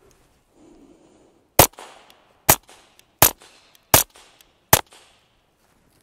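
Five suppressed shots of Gemtech subsonic .22 LR from a pistol fitted with an Acadian Armament Lynx suppressor, fired steadily about three-quarters of a second apart. Each is a short sharp crack with a brief fading tail.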